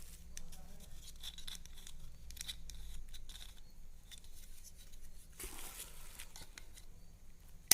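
A plastic car phone holder being handled and adjusted: scattered light clicks and rubbing, a longer rustle past the middle, and one sharp click at the very end.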